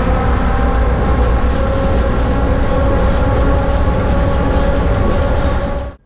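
Automated airport people-mover train running, heard from inside the car: a steady rumble with a few steady whining tones over it. The sound cuts off suddenly just before the end.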